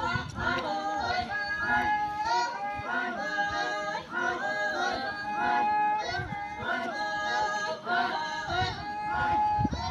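A group of women singing a Naga folk chant in chorus, many voices holding long notes together in repeating phrases. Dull low thumps come near the start and again near the end.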